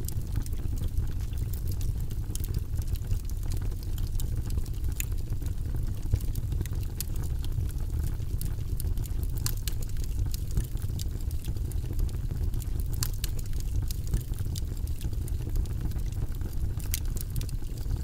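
Wood logs burning in an open fireplace: a steady low rush of flame with frequent irregular sharp crackles and pops.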